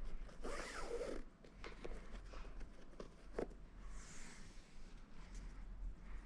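A shoelace being pulled and threaded through the eyelets of a sneaker: a series of short rubbing, swishing pulls with a few small ticks.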